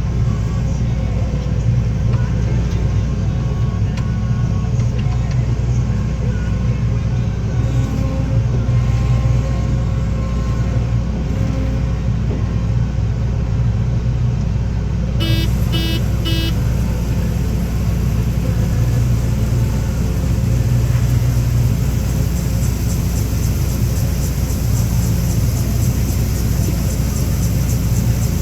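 Heavy engine of harvest machinery running steadily at a constant low drone. About halfway through there are three short electronic beeps, and in the last few seconds a fast high ticking joins in.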